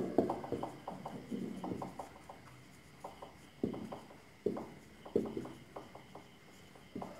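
Felt-tip marker writing on a whiteboard: quick runs of short taps and squeaks, then single strokes about a second apart.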